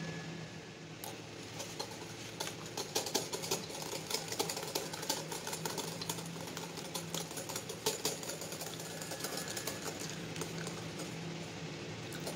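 Wire balloon whisk beating batter in a glass bowl: a fast, uneven run of ticks and clinks as the wires strike the glass. It is busiest from about two to eight seconds in and thins out near the end, over a steady background hiss.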